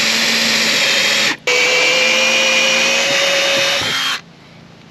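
Makita cordless drill running at speed as it bores a hole through the truck camper roof for the solar panel wiring. It runs with a steady whine, stops for a moment about a second and a half in, runs again, then stops about four seconds in.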